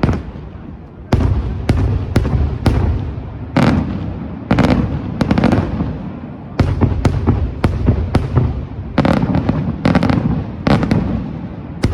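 Daylight fireworks display: aerial shells bursting in a rapid, irregular series of sharp bangs, about two a second, each followed by a low rumbling echo.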